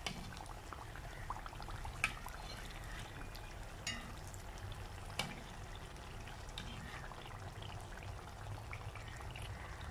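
Spring rolls deep-frying in hot oil: a low, steady sizzle and bubbling, with a few sharp ticks now and then. The rolls are near the end of frying, turning golden brown.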